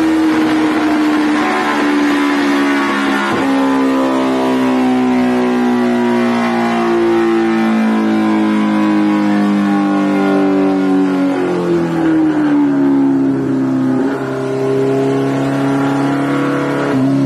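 Kawasaki Ninja H2R's supercharged inline-four running hard on a chassis dyno, its engine note sinking slowly in pitch and jumping back up several times.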